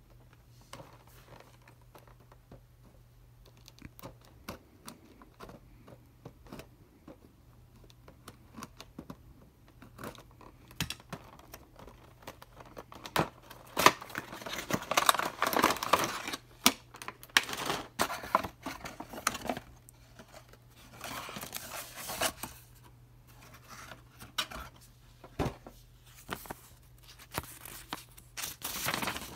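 Cardboard packaging, its clear plastic window tray and a paper leaflet being handled and opened: irregular rustling, crinkling and small clicks. The loudest spell of rustling comes a little past the middle, with more near the end as the paper is unfolded.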